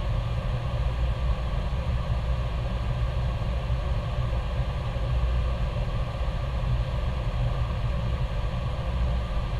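Steady low engine drone heard inside an aircraft cockpit, unchanging throughout.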